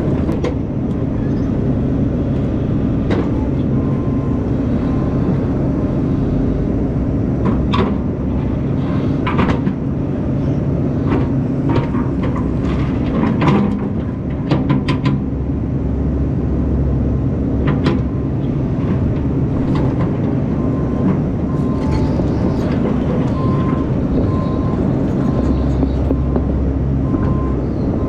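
Diesel engine of a tracked earthmoving machine running steadily under load, with scattered metallic clanks and knocks. Two runs of short, evenly spaced beeps come in, one a few seconds in and a longer one near the end.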